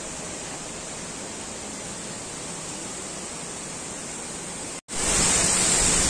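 Steady rush of a waterfall. Near the end it cuts out for an instant and comes back louder.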